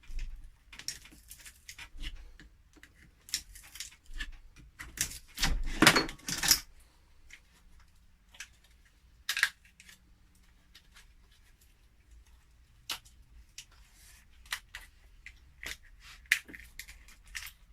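Glue being scraped and peeled off 18650 cells taken from a laptop battery pack: irregular scratches, clicks and plastic crackles, busiest and loudest about five to six and a half seconds in.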